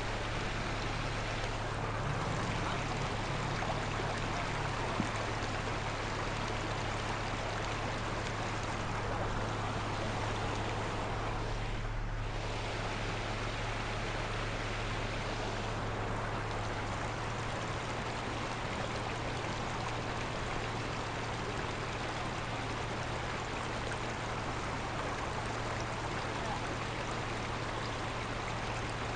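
Muddy runoff water rushing steadily down a rocky trail, with a steady low engine hum underneath.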